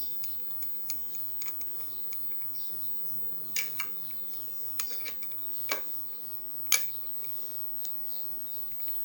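Scattered sharp metallic clicks and taps from hand tools and handlebar clamp bolts being handled as the clamps are undone and taken off. The loudest come in a cluster of about five clicks in the middle.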